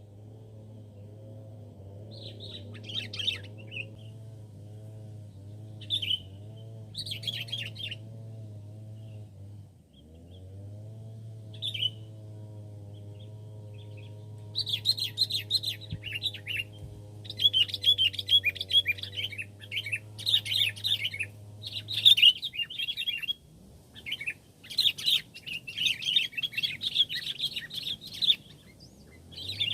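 Sooty-headed bulbuls chirping in short chattering bursts, sparse at first and near-continuous for the last half. A low steady hum runs underneath and stops about two-thirds of the way through.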